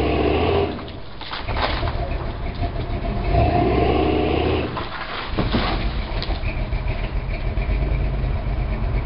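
1973 GMC mud truck's engine revving hard in two surges while pulling a large tree branch down by a tow strap, then running steadily at a lower pace.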